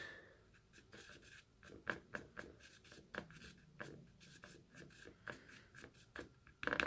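A paintbrush mixing and thinning paint on a palette: a run of faint, irregular small taps and scrapes.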